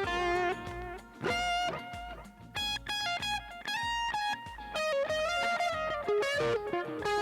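Music: an electric guitar playing a melody of single held notes that step up and down in pitch, over a low bass.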